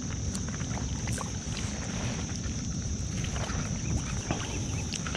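Wind buffeting the microphone and river water washing against a kayak, a steady low rumble with faint scattered ticks and taps.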